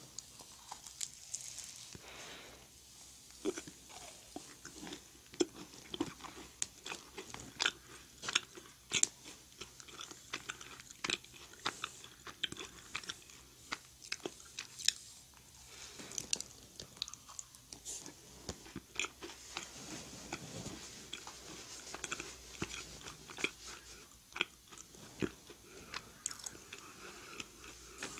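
Close-miked biting and chewing of a raspberry macaron: the crisp shell crunches and crackles, with many small sharp clicks and crackles throughout the chewing.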